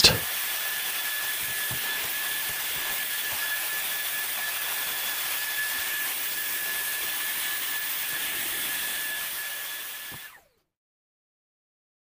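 Handheld vacuum cleaner running steadily: a hiss of rushing air with a high motor whine, picking up the dust left by the command strips. It fades out near the end.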